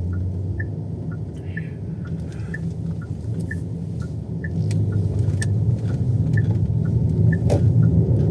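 Car cabin drone of engine and road noise, which grows louder about five seconds in. Over it a turn-signal indicator ticks in an even two-note tick-tock, about two clicks a second.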